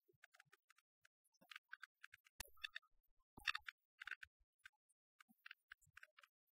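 Near silence with faint, irregular clicks and crackles, two slightly louder ones about two and a half and three and a half seconds in: surface noise of an old film print's soundtrack.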